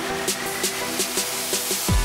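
Electronic background music with a steady beat over sustained synth notes; right at the end a falling sweep leads into a heavy bass drop.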